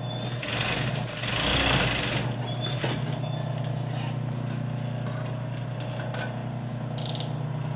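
Industrial sewing machine humming steadily, with a loud burst of stitching and fabric handling from about half a second to two seconds in. A couple of sharp clicks come near the end.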